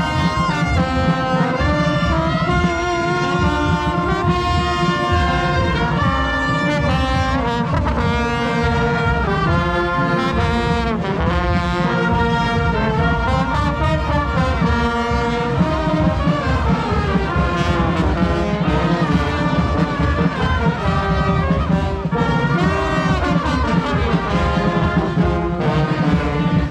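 Brass band playing a carnival tune, with trumpets and trombones carrying the melody.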